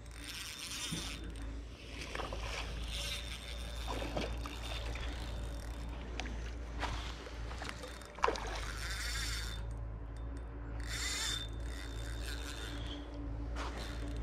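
Fly reel's click-and-pawl ratcheting in irregular bursts as a hooked trout pulls line, over a steady low rumble.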